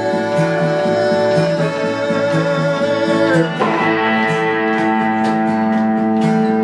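Instrumental break in a folk song: strummed guitar over a steady, repeating bass line, the chord changing about halfway through.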